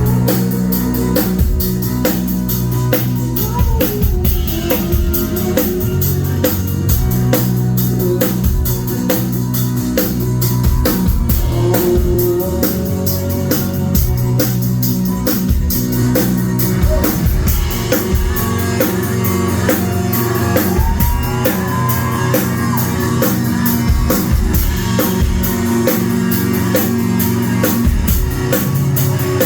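Rock band playing loud and live: fast, steady drums with distorted electric guitar and bass, recorded on a phone in the crowd.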